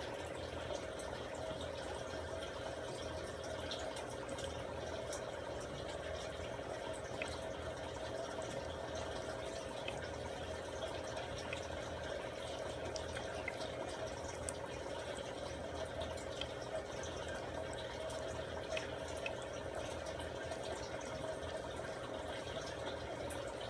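Steady running of aquarium equipment: a low hum with a continuous watery hiss and scattered faint ticks, like a small pump or aeration bubbling in a fry tank.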